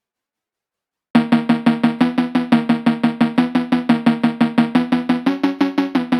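Silence for about a second, then background music starts suddenly: a fast, even pattern of short, plucked-sounding notes with percussion, about six or seven a second, with a pitch change near the end.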